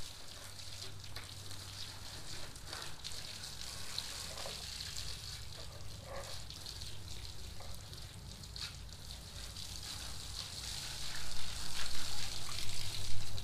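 Water from an open garden hose spraying onto a mud-caked ATV, a steady hissing splatter. It grows louder near the end as the stream hits the front tire and the concrete.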